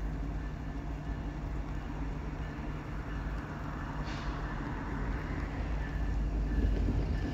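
EMD SD70M-2 diesel locomotive engine running steadily with a low rumble, growing louder near the end, with a brief hiss about four seconds in.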